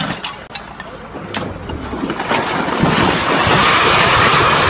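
Stone barn collapsing under an excavator: a few sharp cracks and knocks in the first second and a half, then a rushing rumble of falling masonry that grows louder and stays loud.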